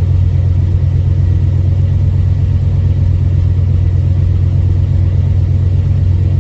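Car engine idling steadily with a constant low hum, freshly started and not yet up to temperature.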